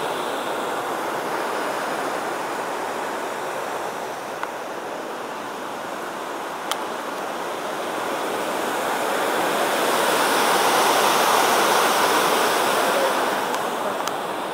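Steady rush of river water spilling over a concrete weir and flowing through the headworks canal, growing louder about two-thirds of the way through, then easing slightly.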